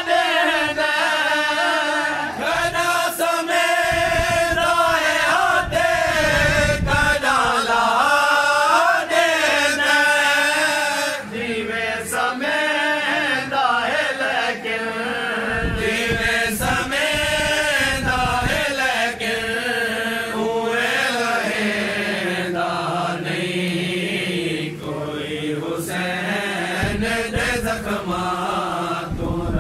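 A man's voice chanting a lament for Husain, unaccompanied, in long wavering melodic phrases.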